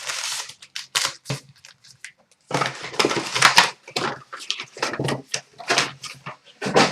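A sealed box of trading cards being opened by hand: irregular crinkling, tearing and crackling of wrapper and cardboard in quick handfuls with short pauses.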